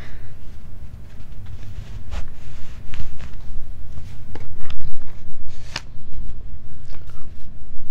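A steady low rumble, with scattered light clicks and rustles of hands handling a small object.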